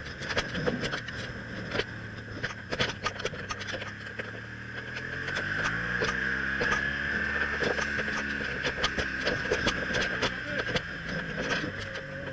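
BMW R1200CL motorcycle's boxer-twin engine running under way, its pitch rising a few seconds in as it accelerates and then holding steady, with wind noise and frequent sharp rattling ticks.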